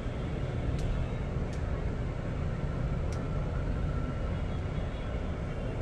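Steady low rumble of a bus interior, engine and road noise, with three light clicks.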